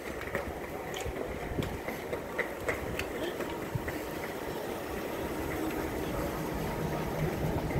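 Box truck's engine running as it moves slowly along a narrow stone-paved street, a steady low rumble, with light footsteps on the paving stones.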